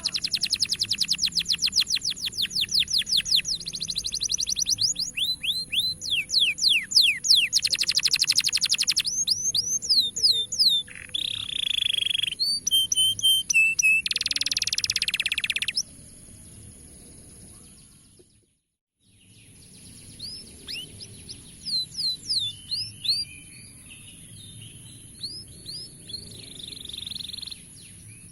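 Domestic canary singing: fast rolling trills and runs of quick downward-sweeping chirps. The song breaks off for about a second a little past the middle, then resumes more quietly, over a faint steady high tone.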